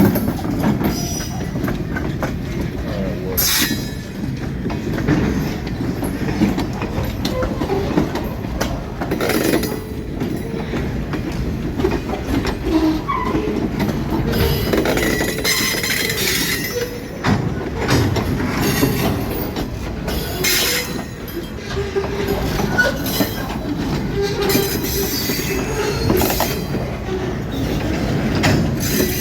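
Freight train cars rolling past, steel wheels clacking and knocking over the rail joints in an irregular stream, with brief wheel squeals now and then over a steady rumble.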